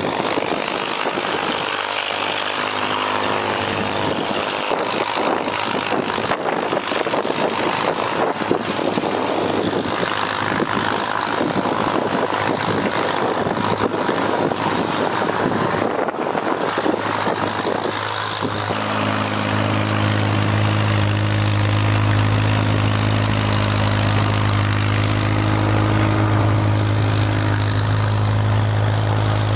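Vehicle engines running. First an ATV's engine, then from about two-thirds in a tractor's engine comes in, steady and louder as the tractor draws near.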